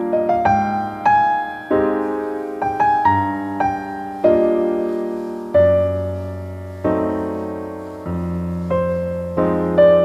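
Background piano music: a slow melody of struck notes, each fading away, over lower held chords.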